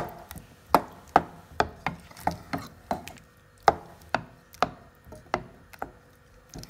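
Wooden spoon stirring chunks of cooking tomato in a stainless-steel pot, knocking against the pot's side about twice a second in an uneven rhythm.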